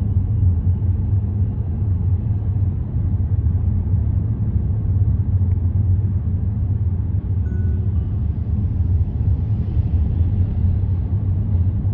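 Steady low rumble of a car driving: road and engine noise, even throughout with no distinct events.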